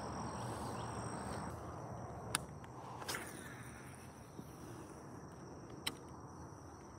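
Steady high insect trilling over rustling footsteps in grass, with three sharp clicks: one between two and three seconds in, another about a second later, and one near the end.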